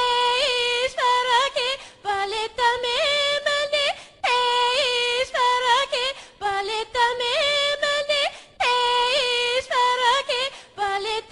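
A ringtone melody sung or played in a high voice-like tone with no accompaniment. A short phrase with pitch slides repeats about every two seconds, with brief breaks between repeats.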